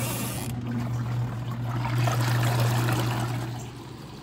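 Portable twin-tub washing machine starting its wash cycle: the motor gives a steady low hum while the agitator churns the water in the tub. The sound drops noticeably near the end.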